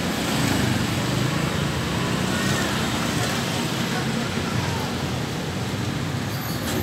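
Steady background noise of road traffic and vehicle engines, with faint voices under it.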